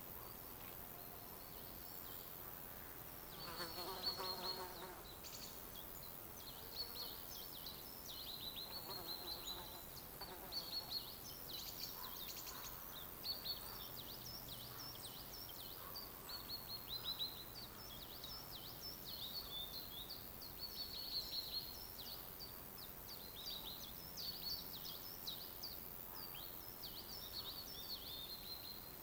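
Forest birds singing: a constant run of short, high chirps and trills, with a lower call about four seconds in, over a faint steady hiss.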